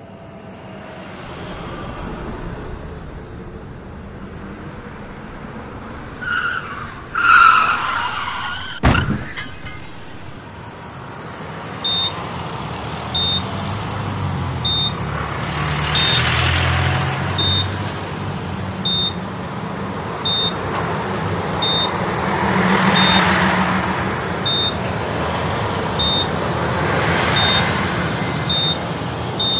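A vehicle skidding with its tyres squealing, then a sharp crash about nine seconds in. After that a short high beep repeats about every second and a half over the noise of passing vehicles.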